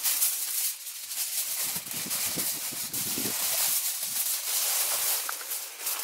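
Aluminium foil crinkling and rustling as a sheet is spread and pressed down over a steel pan, in a dense run of crackles.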